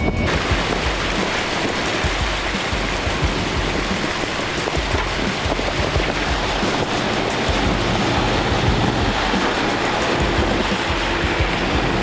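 Loud, steady rush of wind buffeting the microphone, mixed with water noise as from a boat under way.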